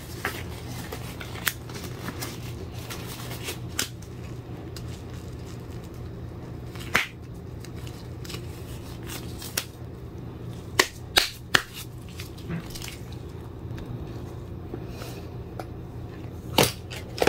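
Scattered light clicks and knocks of small objects being handled and set down on a work surface, a few louder taps about 7 and 11 seconds in, over a steady low hum.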